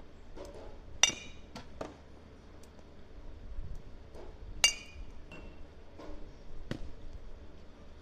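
Metal baseball bat striking pitched balls: two sharp, ringing pings about three and a half seconds apart, with a few lighter knocks in between.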